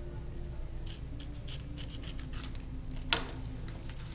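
Utility knife blade scraping and cutting along old tape at the edge of a Mylar book-jacket cover, with a string of small scratches and paper-and-plastic rustles. One sharp tap about three seconds in as the knife is set down on the table.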